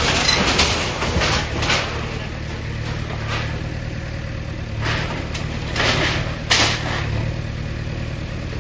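JCB backhoe's diesel engine running steadily, with repeated crashes and clatter of brick and debris as its bucket breaks down a shop structure. Several crashes come in the first two seconds and again after about five seconds, the loudest about six and a half seconds in.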